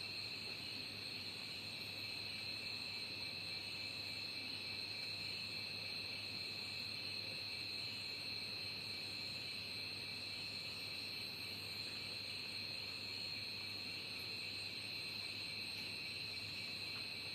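Insects trilling steadily in a continuous chorus at two high pitches, over a faint even hiss.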